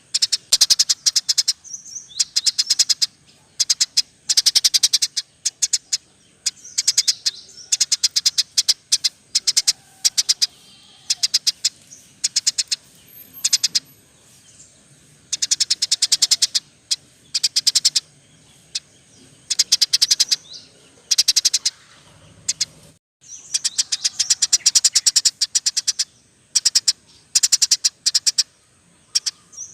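Recorded songbird singing: bursts of rapid trilled chirps, one after another, with a brief break about 23 seconds in.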